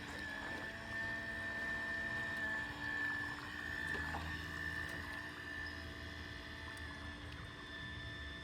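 Small electric motor of a toy RC boat running with a steady high whine.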